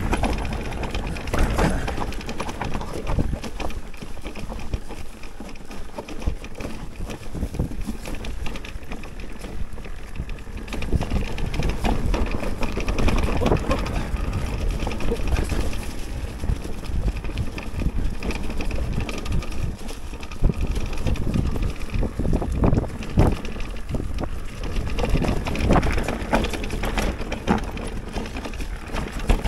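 Mountain bike rattling over a rough, bumpy trail on a descent: irregular knocks and rattles from the frame and parts over a steady rush of tyre and wind noise.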